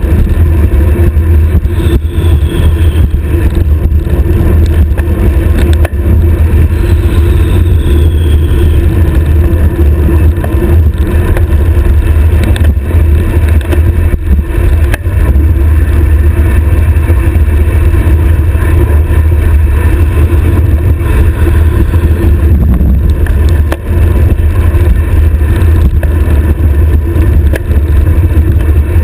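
Heavy wind rumble on a stem-mounted GoPro's microphone as a road bike descends at high speed: a loud, steady low roar, with a few short knocks along the way.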